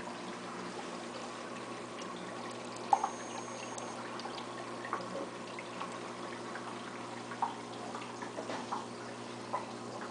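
Aquarium filter running: a steady hum with water trickling and scattered small drips or bubble pops, the sharpest about three seconds in.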